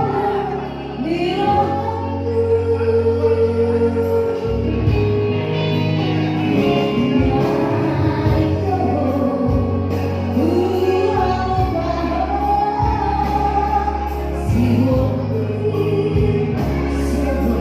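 A singer's voice carrying a melody over instrumental accompaniment, with long held bass notes underneath.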